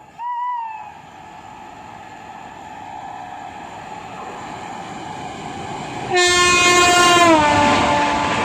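An approaching express train's rumble builds steadily, then the WAP-7 electric locomotive's horn sounds one loud blast about six seconds in, its pitch dropping partway through as the locomotive passes at speed. A brief rising-and-falling call is heard right at the start.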